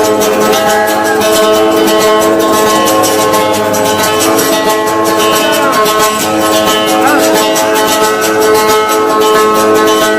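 Instrumental break in a Yemeni song: a plucked string instrument played in rapid strokes, with held notes sounding beneath.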